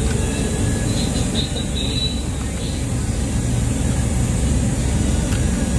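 Steady low background rumble, with a few faint high squeaks about one to two seconds in.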